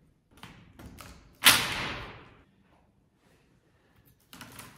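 A coil of red PEX-A pipe handled and set down on a plywood subfloor: a few light knocks, then one loud thump about a second and a half in, followed by rustling near the end.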